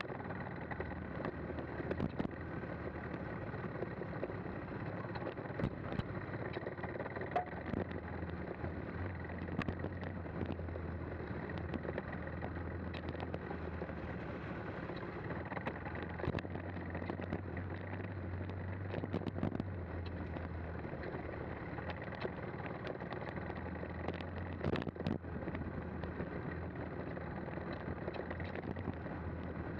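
The single-cylinder engine of a KTM 390 Adventure motorcycle running off-road. Its note swells and eases with the throttle, with frequent sharp knocks as the bike jolts over the rough track.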